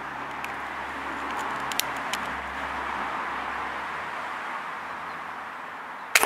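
Steady background hiss with a few faint ticks about two seconds in, then a single sharp crack of an air rifle shot at the very end.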